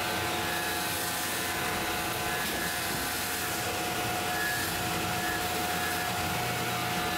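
Tormach 1100 CNC mill taking an adaptive roughing cut in urethane tooling board with an end mill, together with a shop vacuum running at the cutter to pull away the chips. A steady, unchanging machine noise with a held tone.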